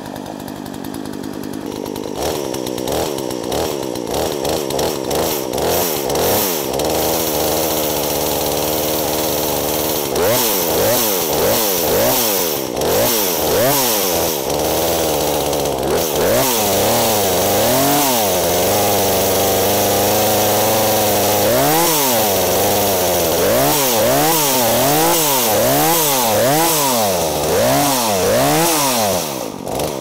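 Poulan Woodshark two-stroke chainsaw engine running while the throttle is feathered, the revs rising and falling over and over, and settling near the end into a quick rise and fall about once a second. The saw is warming up on its first run after ten years in storage.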